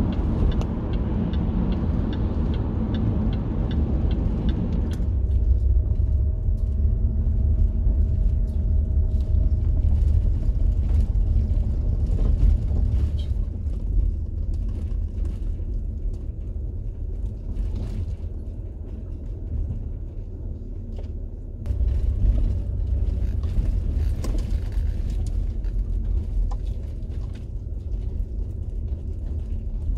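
Car driving on a highway, heard from inside the cabin: a steady low rumble of road and engine noise. Faint, regular ticking runs through about the first five seconds.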